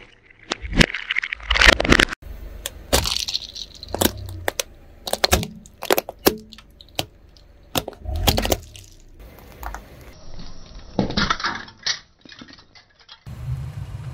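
Plastic Rubik's cubes cracking and breaking apart under a car tyre: a string of sharp snaps and cracks, with broken pieces clinking onto the pavement.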